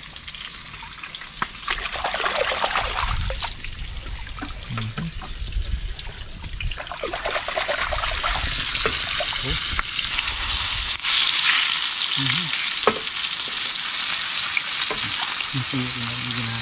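Dried salted fish (daing) frying in hot oil: a steady sizzle that grows louder and fuller about halfway through, with a few sharp ticks.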